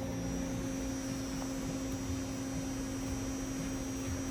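Steady electrical hum with a strong low tone and a faint high whine, unchanging throughout.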